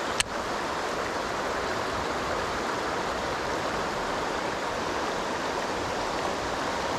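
Shallow river water rushing steadily over the shoals. A single sharp click comes just after the start.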